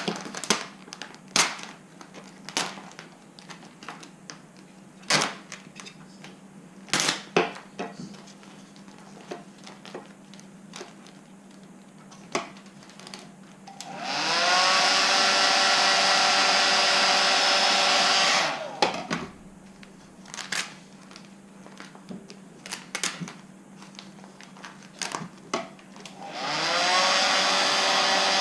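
Heat gun blowing hot air onto vinyl wrap, switched on twice: about halfway through for some four seconds, and again near the end. Each time its motor whine rises as it spins up, over a steady rush of air. Before and between the runs come scattered clicks and crinkles as the vinyl is handled.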